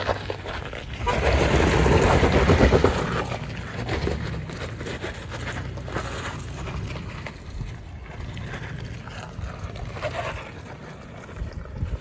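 A 2018 Toyota 4Runner TRD Off-Road's engine running at low speed on a rough trail, with wind buffeting the microphone. A louder rush of noise comes about one to three seconds in.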